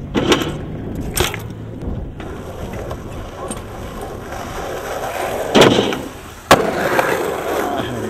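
Skateboard wheels rolling over rough asphalt, broken by several sharp board clacks and slaps. The loudest are a heavy slap about five and a half seconds in and a sharp crack a second later.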